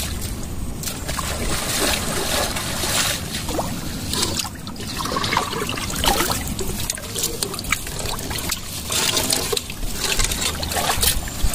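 Water trickling and splashing, with scattered small clicks and knocks.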